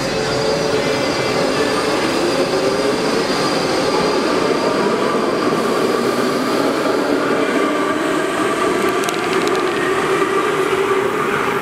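Budd Universal Transit Vehicle subway train pulling out of an underground station, its motors giving a whine that rises in pitch as it picks up speed over wheels running on the rails. The sound stays loud and steady as the last car passes.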